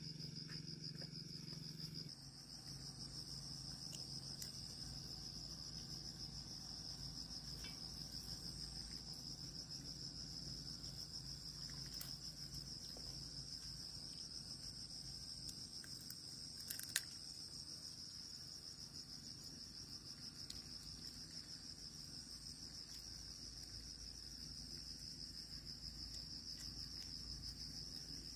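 Insects trilling in one high, unbroken buzz, with a single sharp click a little past halfway through.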